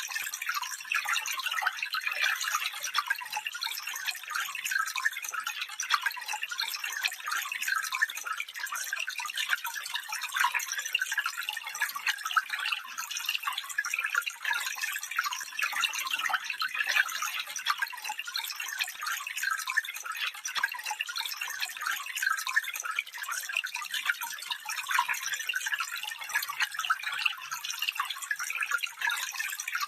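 A small stream trickling and babbling over stones, a steady dense patter of fine splashes with little low rumble.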